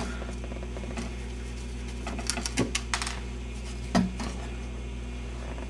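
A television's masonite back cover being handled and pried off its wooden cabinet: a run of small clicks and knocks about two to three seconds in, then a single knock about four seconds in, over a steady low hum.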